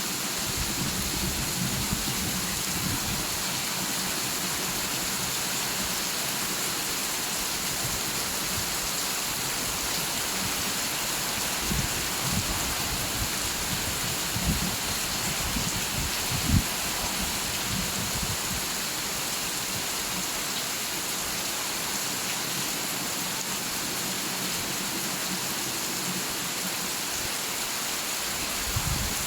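Steady rain falling, an even hiss. There are a few short low thumps near the middle.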